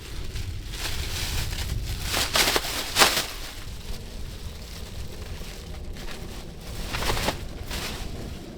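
Wind rumbling on the microphone, with rustling handling noises and a few sharp clicks or knocks, the loudest about three seconds in.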